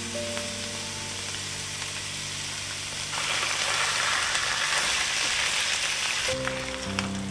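Food sizzling in hot oil in a pan, much louder for about three seconds in the middle, over background music.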